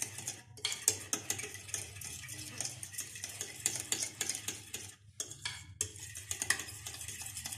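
A spoon stirring a thick yogurt-and-spice marinade in a bowl: quick, repeated scraping and clinking against the bowl, with a short pause about five seconds in.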